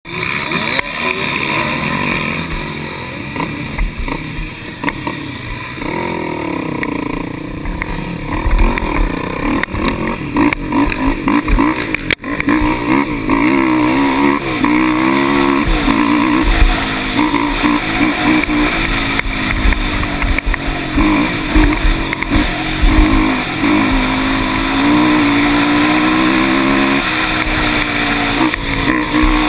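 ATV engine running under a rider, its pitch rising and falling over and over as it revs up and backs off along a dirt trail, with occasional knocks.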